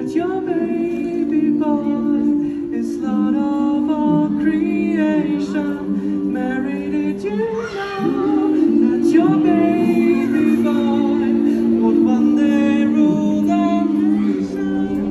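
Male vocalists singing through a microphone and loudspeakers, a melody in long held notes over a steady lower harmony.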